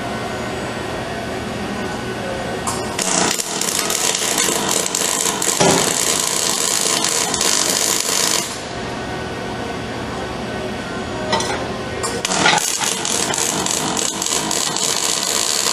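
Robotic arc welding by a Fanuc ArcMate 100iB: the welding arc crackles and hisses steadily through two welds, the first starting about three seconds in and stopping a little past halfway, the second starting about three-quarters of the way in. A quieter steady hum fills the pause between them.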